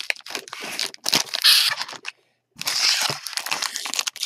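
Plastic wrapper of a Bowman Draft baseball card pack crinkling and tearing as it is ripped open by hand. It comes in two noisy stretches with a short pause a little past halfway.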